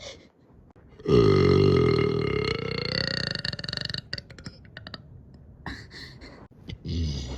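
A person burping: one long, deep burp starting about a second in and dying away over about three seconds, followed by a few short clicks and a second, shorter burp near the end.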